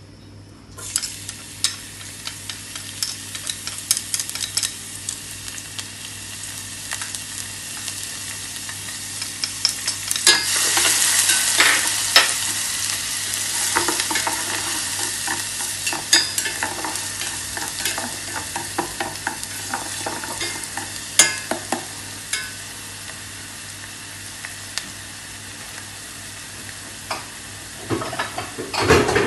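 Minced garlic frying in hot oil in a stainless steel pot: a steady sizzle that swells about ten seconds in, with short clicks and knocks of a utensil stirring it, busiest near the end.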